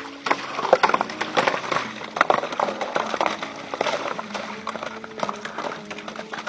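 Rods of ice, frozen inside a black plastic water pipe by the cold, sliding out of the pipe's end and clattering onto a pile of ice sticks: many quick, irregular clinks and knocks.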